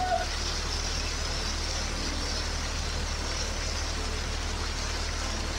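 Poolside waterfall spout pouring a heavy, steady curtain of water that splashes down onto people standing beneath it and into the pool.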